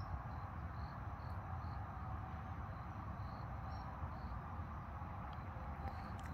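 Insects chirping: short, high chirps repeating irregularly about every half second over a steady low background noise.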